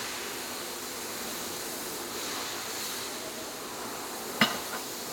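Steady hiss from a 1500 W laser welding machine running, with a sharp click about four and a half seconds in and a fainter click just after.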